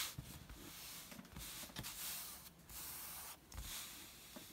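Hands sliding and pressing over an applique pressing sheet laid on fabric: a faint swishing rub in a few strokes with short breaks.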